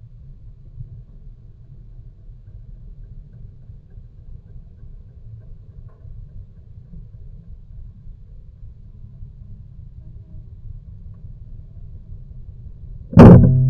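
A steady low rumble, then near the end a sudden loud hit that rings on as a low tone slowly fading away.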